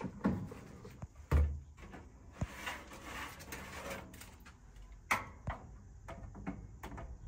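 Countertop air fryer oven's door being opened and a metal tray slid in and knocked into place: a string of separate clicks and clunks, the loudest about a second and a half in and again about five seconds in.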